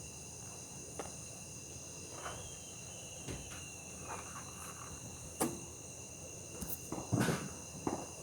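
Steady night-time chorus of crickets, several high trills held evenly throughout, with a few faint knocks and a short cluster of dull thumps about seven seconds in.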